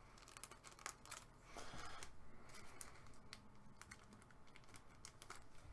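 Faint, scattered light clicks and a soft rustle of trading cards and plastic card holders being handled, as a card is being worked into a holder that it doesn't want to fit.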